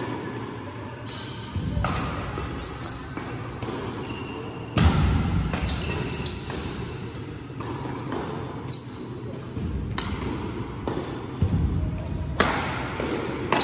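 Badminton rally: rackets striking the shuttlecock in a string of sharp hits about a second apart, with shoes squeaking and footsteps on the court floor.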